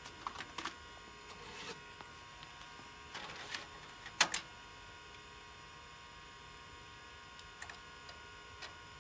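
A vintage PC and its Miniscribe 3425 MFM hard drive running with a steady whine of several fixed tones. Scattered sharp clicks and knocks come over it in the first few seconds, the loudest about four seconds in, and a few light key clicks come near the end as the command is typed again.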